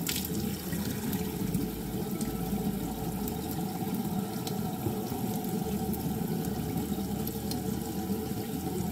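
Bathroom sink faucet running steadily into the basin.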